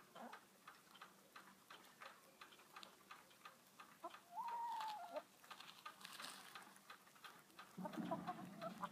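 Backyard hens foraging: one hen gives a single drawn-out call about four seconds in, and low clucking starts near the end. Faint, rapid ticking clicks run underneath.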